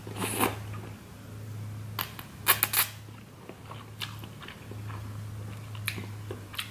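Close-up eating sounds of spicy instant ramen noodles: noodles drawn into the mouth and chewed. There is a short rush of sound in the first second and a cluster of short, sharp sounds about two and a half seconds in, over a low steady hum.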